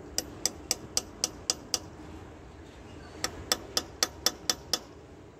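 Hammer tapping a broken-bolt screw extractor into the hole drilled in a snapped bolt on an engine head, to seat it before unscrewing. Two runs of about seven quick light taps, about four a second, with a short pause between.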